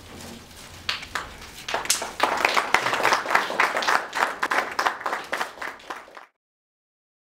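Audience applauding: a few scattered claps at first, swelling into full applause after about two seconds, then cutting off suddenly about six seconds in.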